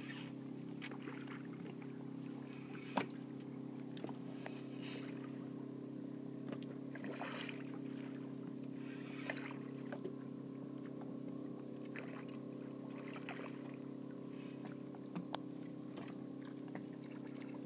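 Boat motor running with a steady low hum, while a hooked redfish splashes at the surface several times. A single sharp knock comes about three seconds in.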